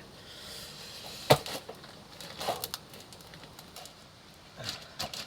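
Handling knocks from a rubber coil-spring isolator being worked onto a coil spring: one sharp knock about a second in, then lighter taps and clicks.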